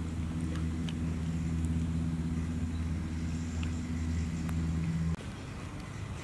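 A motor running steadily with a low, even hum, cutting off suddenly about five seconds in. Faint light clicks sound over it.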